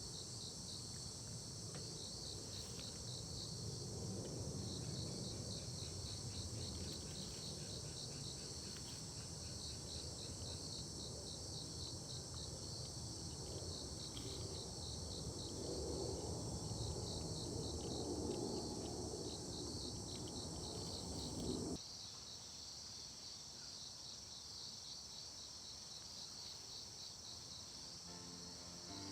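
Crickets and other grass insects chirping in a steady chorus: quick repeated chirps over a continuous high trill. A low background rumble under them drops away abruptly about 22 seconds in.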